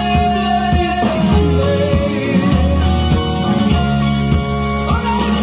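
Rock song with singing, played from a vinyl record on a vintage turntable through a hi-fi amplifier and speakers.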